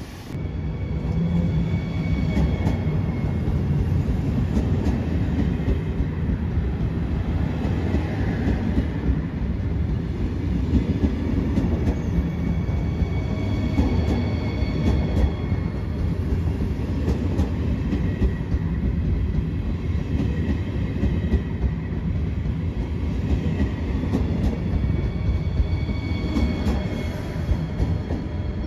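Class 462 Siemens Desiro HC electric multiple unit running close by: a steady loud rumble of wheels on rail, with scattered clicks over the rail joints and a faint high wheel squeal.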